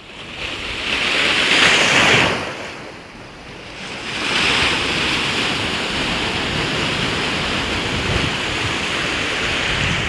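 Sea waves rushing and washing with wind on the microphone: a swell of noise about a second in, easing off, then a steady rush from about four seconds on.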